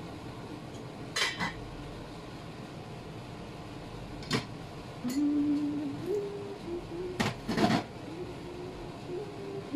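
Metal kitchenware clinking: a pot lid set down on a cooking pot about a second in, then a spatula and a plate knocking against a stainless-steel sink, once near four seconds and in a louder quick cluster near seven and a half seconds.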